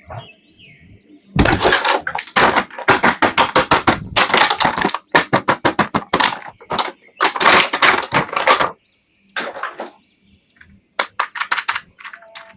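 Rapid runs of sharp crackling and clicking from toy packaging being handled and opened, in bursts of a few seconds with short pauses.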